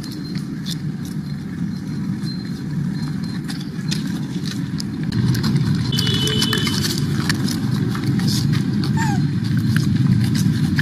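Steady low outdoor rumble, like wind or distant traffic, with scattered light clicks. It gets somewhat louder about halfway through.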